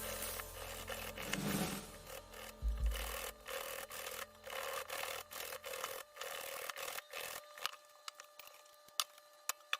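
Irregular light clicks, taps and rubbing sounds from objects being handled, growing sparse and faint in the second half.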